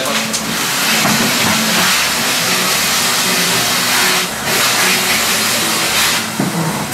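Steady loud hiss, dipping briefly about four seconds in, over quiet background music.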